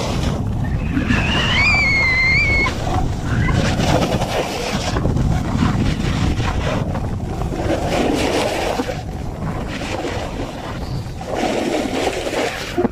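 Heavy wind rushing over the microphone while snowboarding, with the board sliding on snow. There is a brief high wavering tone about a second in.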